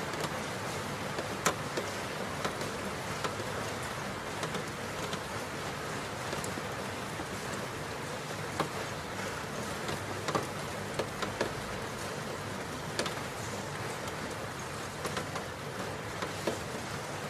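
Steady rain hiss with scattered sharp drop ticks, over a faint steady tone underneath.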